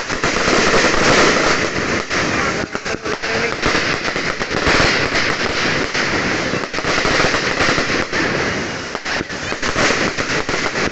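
Fireworks going off in a dense, unbroken run of rapid cracks and pops.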